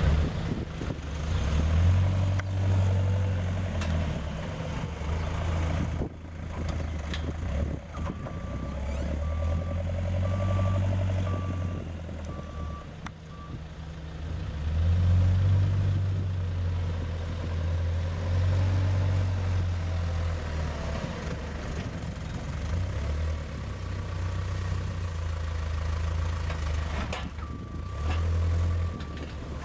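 Diesel engines of telehandlers working with a bale grab, their low rumble rising and falling with throttle and load. A reversing alarm beeps about twice a second for several seconds near the middle, and briefly again near the end.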